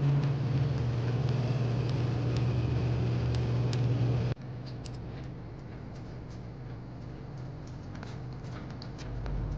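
Steady low hum and background noise of a convenience store, with scattered light clicks. About four seconds in it cuts off suddenly to a quieter room tone with faint clicks.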